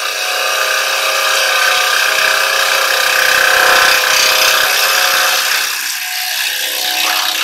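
Carbide-cutter turning tool cutting a spinning silver birch bowl blank on a wood lathe: a loud, steady hiss of the cut peeling shavings off the wood. It eases a little about six seconds in and breaks off abruptly at the end.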